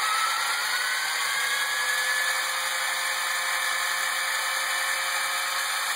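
Brushed DC rear drive motor of an Arduino-controlled RC car, driven by PWM through an L298N motor driver, whining as it is throttled up. The pitch rises over the first two seconds, then holds steady at max speed.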